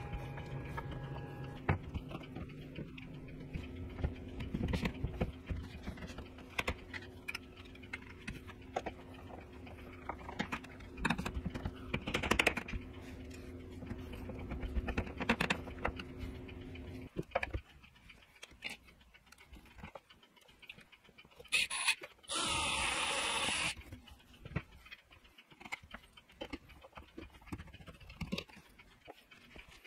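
Scattered clicks, taps and knocks of a screwdriver working the screws of concealed cabinet-door hinges and of cabinet doors being handled and fitted. A steady low hum runs under it until a little past the middle, and a loud hiss lasting about a second and a half comes about three quarters of the way through.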